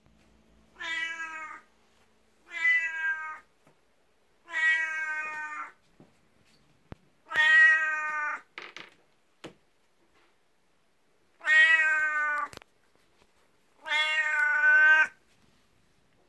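A 19-year-old tabby cat meowing loudly, six long drawn-out meows of about a second each, a few seconds apart, calling for attention.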